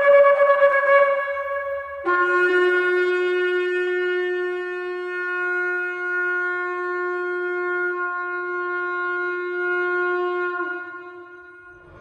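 Shofar blowing: a higher note trails off, then a long, steady, lower blast starts about two seconds in and holds for about eight seconds. Near the end it dips slightly in pitch and fades out.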